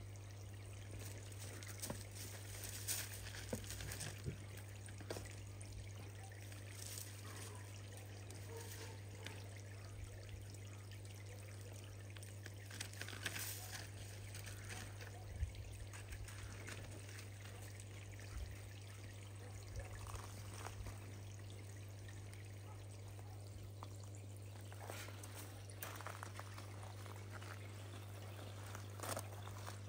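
Water trickling and pouring steadily into a garden pond from a pipe outlet, with small irregular splashes. A steady low hum runs underneath.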